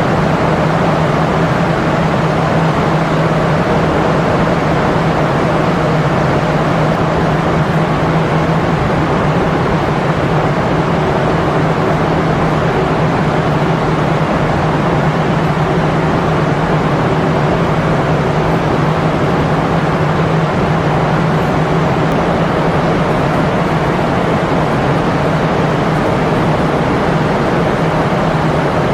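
Steady, loud machine roar with a constant low hum running underneath, unchanging throughout.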